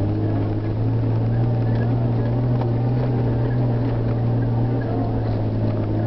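Car engine running steadily under load, pulling uphill on a gravel track, heard from inside the cabin; its pitch steps up slightly about a second in.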